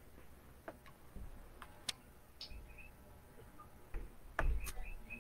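Computer mouse clicking: a handful of faint, scattered clicks, with a duller bump and a couple more clicks about four seconds in.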